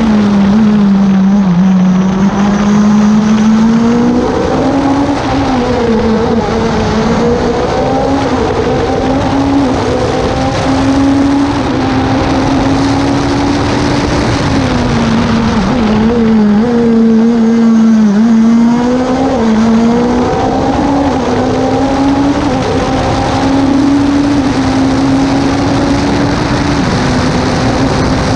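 Open-cockpit sports-prototype race car's engine heard from the cockpit, driven hard: the engine note rises and falls with each quick gear change, dipping lower about two seconds in and again past halfway as the car slows for bends, over a steady rush of wind and road noise.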